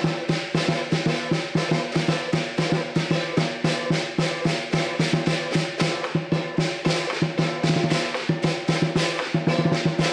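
Southern lion dance percussion: a large lion drum beating a fast, steady rhythm over clashing cymbals and a ringing gong, accompanying a traditional lion dance.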